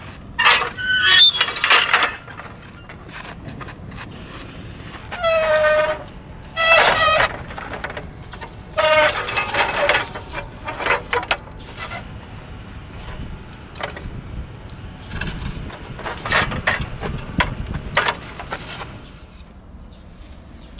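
Steel-framed portable batting-practice net screens being moved: their metal frames squeal and scrape several times. A run of clanks and scrapes comes near the end.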